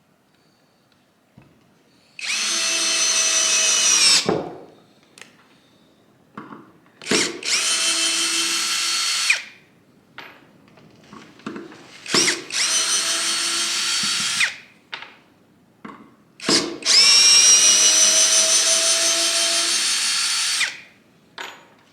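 Seyvum PD-BL10 21-volt brushless cordless drill/driver running in four trigger pulls of about two to four seconds each, with short blips between them. The motor whine holds steady through each pull, as it drives screws.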